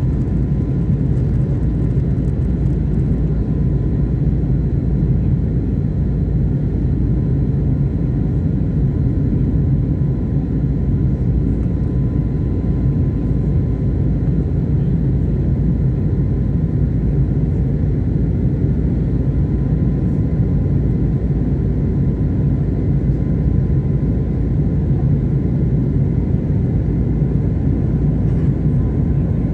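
Jet airliner cabin noise during the climb after takeoff: the engines and rushing airflow make a steady low rumble, heard from a window seat inside the passenger cabin, with a faint steady high tone over it.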